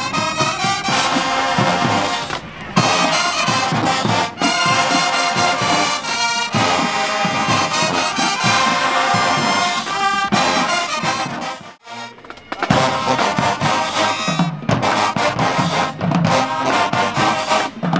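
Brass band playing loudly, with a few brief breaks, the longest about twelve seconds in.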